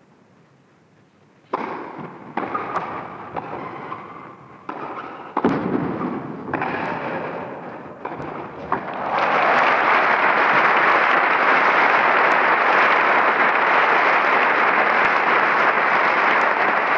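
Tennis rally on an indoor court: the ball is struck back and forth, each racket hit a sharp knock that rings briefly in the hall, about one a second. About nine seconds in, the crowd breaks into steady applause at the end of the point.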